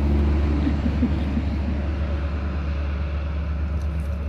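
Steady low hum, like a motor or machine running, holding level throughout.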